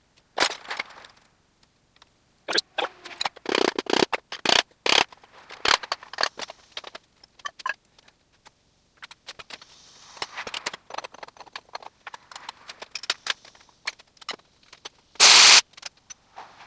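Metal tools and parts clinking, scraping and rattling in irregular bursts during hands-on garage work. A short, loud burst of noise lasting about half a second comes near the end.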